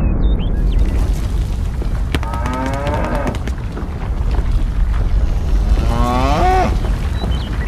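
A cow mooing twice, each moo about a second long, over a steady low rumble.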